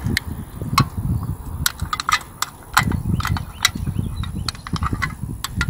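Thin aluminium drink can crinkling and clicking in the hands as its cut side flaps are bent back and pinched open: a dozen or more sharp, irregular crackles over a low rumble.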